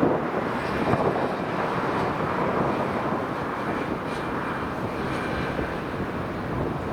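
Airliner engines running as a plane passes near the airport, a steady loud rush that eases slightly toward the end.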